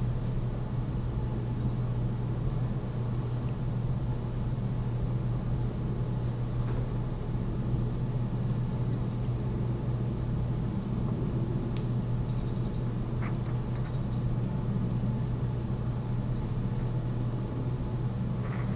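A boat's motor runs steadily with an unchanging low hum. A few faint ticks sound over it.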